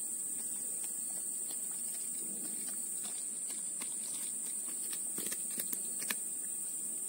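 Steady high-pitched drone of insects in the surrounding vegetation, with a few sharp clicks a little after five seconds in.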